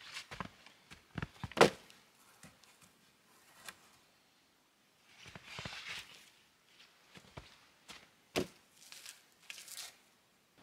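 Wooden poles knocking against each other as a lean-to frame is set up: a few knocks in the first two seconds, the loudest near the end of them, and another about eight seconds in. Between them, crunching footsteps and rustling in snow.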